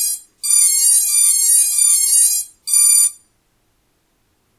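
EMAX Lightning ESCs beeping through the quad's brushless motors during BLHeli throttle calibration: a run of stepping electronic notes, then one short beep about three seconds in, the ESCs' tones as the min-throttle setting is taken.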